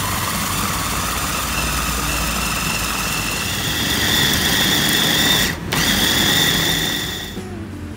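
Electric food chopper running, its blades chopping chili peppers in a glass bowl: a steady motor whine that slowly rises in pitch. It breaks off for a moment about five and a half seconds in, starts again, and stops near the end.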